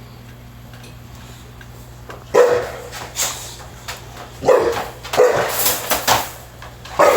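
A dog barking: a string of loud barks in quick succession, starting about two seconds in.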